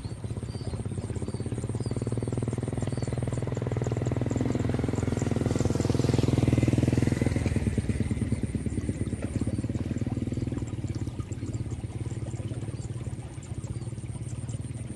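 A motorcycle engine passing by, growing louder to a peak about halfway through and then fading away.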